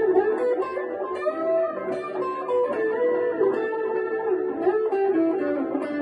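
Electric guitar playing a single-note lead melody, the notes overlapping one another, through a PT2399-based delay.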